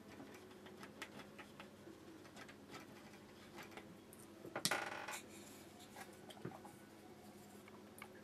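Faint small taps and clicks of a paintbrush dabbing paint onto watercolour paper, with one louder, brief scratchy rustle a little past the middle.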